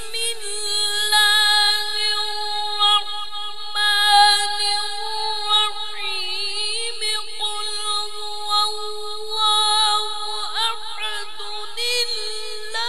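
A man's Quran recitation voice holding one long, high melodic note, near-steady for many seconds, with a wavering ornament about six seconds in and quick trills near the end, heard through a microphone.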